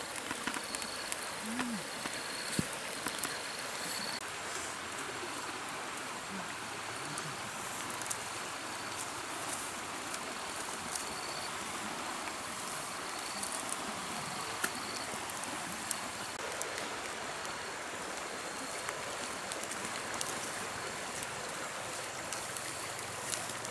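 Steady rushing of a fast-flowing river. A high insect chirps in short repeated pulses during the first few seconds and again around the middle, and there are a few faint clicks.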